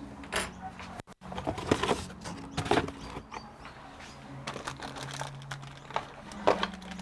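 Irregular clicks, taps and light rustling of small hardware and packaging being handled while a CPU cooler is fitted, over a faint low hum.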